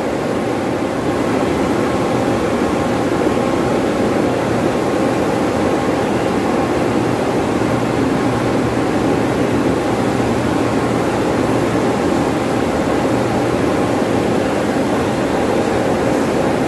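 Steady, loud drone of running fan blowers and air-handling machinery in a building plant room, with a faint low hum under it.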